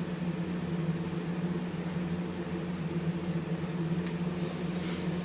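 Steady low mechanical hum from an appliance or fan in the room, with a few faint clicks in the second half.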